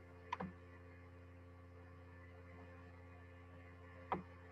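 Steady low electrical hum, with two short clicks, one about half a second in and one near the end.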